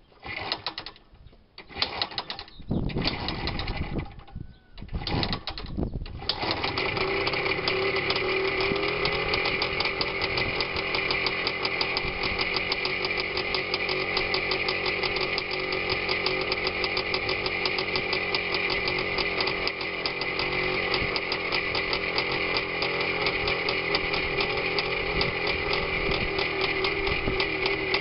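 Minsk motorcycle's single-cylinder two-stroke engine: several short bursts of running in the first few seconds, then it catches about six seconds in and keeps running steadily with a rapid, even beat.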